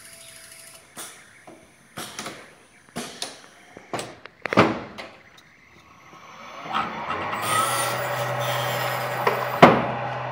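A CNC milling machine: a series of sharp knocks and clanks about once a second, then a motor spins up with a rising whine and settles into a steady hum, with one more sharp knock near the end.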